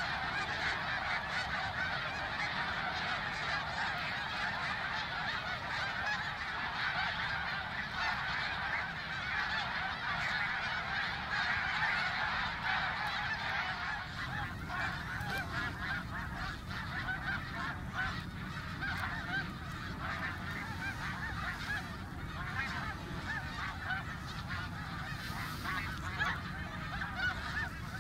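A large flock of snow geese calling all at once, a dense, unbroken din of overlapping honks. The chorus eases slightly about halfway through.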